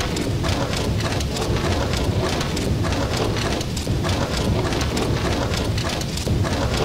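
Rain pattering on a car windshield while the wipers sweep, heard from inside the car: a dense patter of small clicks over a steady low rumble.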